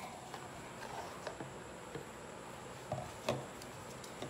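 Faint clicks and light knocks from a plastic container being handled and picked up off a countertop, a few scattered taps with the clearest about three seconds in, over a steady low hiss.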